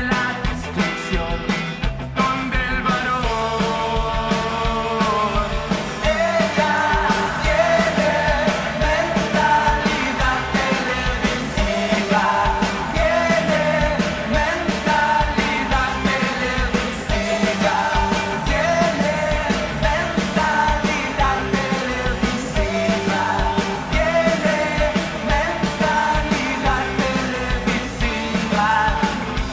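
Live rock band playing a song, with drums, bass and a singing voice over the band.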